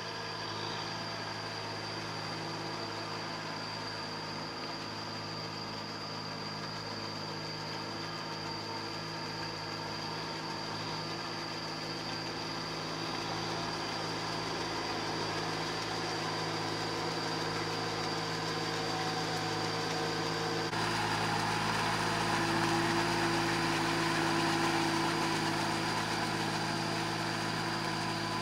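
Kubota tractor's diesel engine running steadily as it works through a flooded rice paddy with a rotary tiller. About twenty seconds in the sound switches abruptly to a different, slightly louder engine: a cage-wheeled paddy tractor dragging a levelling board through the mud.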